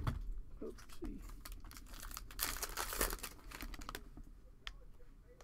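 Plastic wrapper of a Panini Mosaic basketball card pack crinkling and tearing as the pack is opened, loudest in a burst about two seconds in, with light clicks of cards being handled and a sharp knock right at the start.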